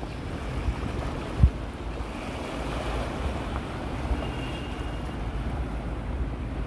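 Wind buffeting the microphone over small waves washing against a rocky shore, with a brief thump about one and a half seconds in.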